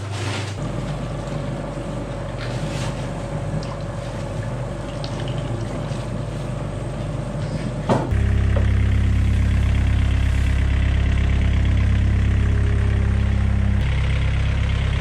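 Steady mechanical hum of an engine or machine running. About eight seconds in it switches abruptly, with a click, to a louder, deeper drone.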